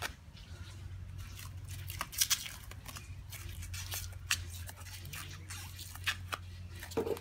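Plastic cling film being wound tightly by hand around a tube, giving scattered sharp crackles and peeling sounds as the sticky film pulls apart from itself, over a steady low hum.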